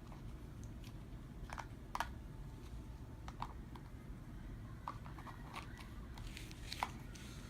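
Faint, scattered clicks and light rustles of small plastic toys and packaging being handled and set down, about six separate ticks over a low room hum.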